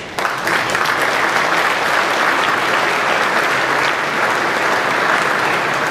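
Audience applauding, starting suddenly and holding steady throughout.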